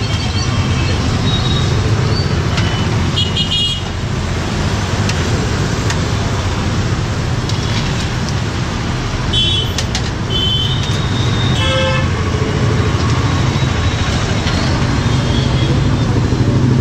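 Steady street traffic noise with a low rumble, and short vehicle horn toots a few times: around three and a half seconds in, and again between about nine and twelve seconds in.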